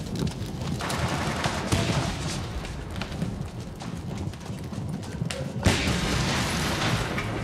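Film soundtrack of a burning building in street fighting: gunfire and dull booms over a low rumble. About five and a half seconds in there is a sudden loud burst of noise that stays loud for a second or more.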